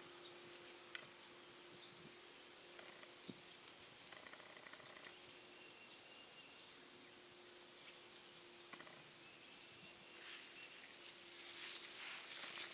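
Near silence outdoors: faint, steady high-pitched insect buzzing with a low steady hum beneath it, and a soft rustle near the end.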